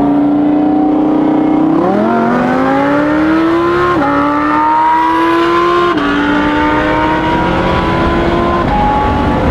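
Cadillac CT5-V Blackwing's supercharged 6.2-litre V8, heard from inside the cabin. It cruises steadily, then goes to full throttle about two seconds in for a rolling-start race. The engine note climbs, with upshifts about four and six seconds in and again near the end.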